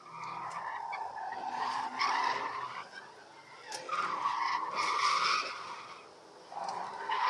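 Ford AU Falcon's tyres squealing as it drifts, heard from inside the cabin: two long squeals of about two seconds each, with a third starting near the end.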